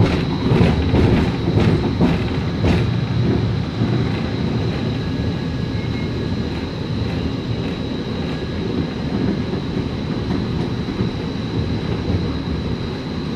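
Portland Streetcar running on its rails, heard from inside the car: a steady rumble of wheels on track, with a run of sharp wheel clicks over the track in the first few seconds and a thin steady high whine throughout.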